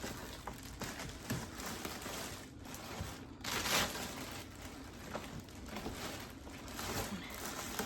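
Plastic packaging crinkling and rustling as a car seat is worked out of its cardboard box, with a louder rustle about three and a half seconds in.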